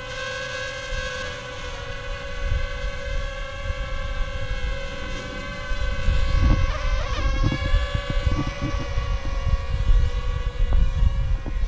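Small camera drone hovering and flying, its propellers humming in a steady stack of tones that waver in pitch about six to eight seconds in as it manoeuvres. Wind buffets the microphone in low gusts, stronger in the second half.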